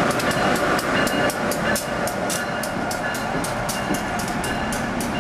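Amtrak AEM-7 electric locomotive and its Amfleet coaches passing close alongside the platform: a steady rumble of wheels on rail with rapid, irregular clicking and clatter.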